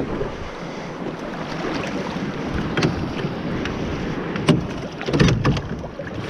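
Small aluminium boat under way, with wind buffeting the microphone and rushing water, and a few sharp knocks about midway and near the end.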